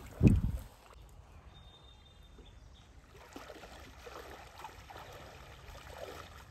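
A brief low thump just after the start, then faint trickling and small splashes of shallow river water.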